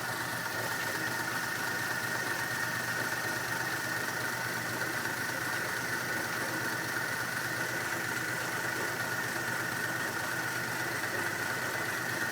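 1950 Pontiac flathead straight-six idling steadily, still warming up shortly after a cold start.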